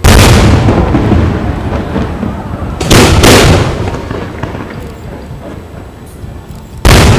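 Aerial firework shells bursting: a loud boom at the start that rumbles away over a few seconds, two more booms in quick succession about three seconds in, and another near the end.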